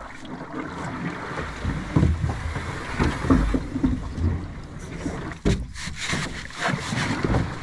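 Canoe paddle strokes in the water: the blade splashing and swirling with each uneven pull, with some wind buffeting the microphone.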